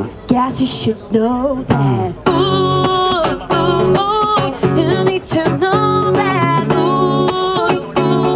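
A woman singing live into a microphone, mostly long held notes with vibrato, over her own strummed electric guitar.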